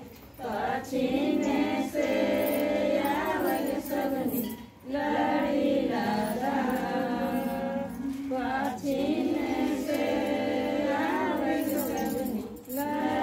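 Women's voices singing a song together in long, drawn-out phrases, with short breaks for breath about five seconds in and again near the end.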